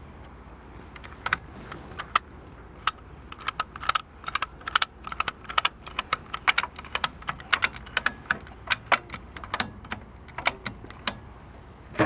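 Erickson retractable ratchet strap being ratcheted down by hand: sharp metallic clicks from the ratchet come in quick runs with short pauses between strokes of the handle as the strap is tightened over the load. The clicking starts about a second in.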